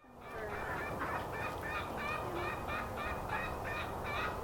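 A flock of domestic poultry calling, with short calls repeating about two to three times a second and overlapping one another.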